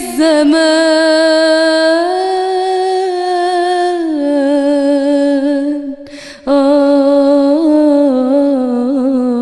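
A woman singing alone, with no instrument heard, stretching the last word of an Arabic song line over long held notes with vibrato. The note lifts a step about two seconds in and drops about four seconds in. A short breath comes about six seconds in, then a second held note with quick ornamental turns that settles lower.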